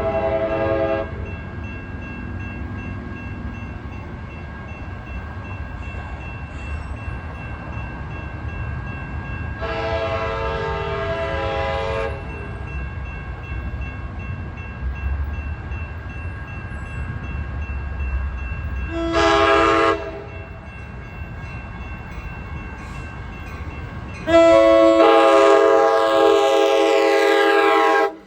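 Locomotive air horn sounding a long, long, short, long sequence, the standard grade-crossing warning, over the steady rumble of the approaching train. The last blast is the loudest, and its upper notes fall in pitch as the train passes.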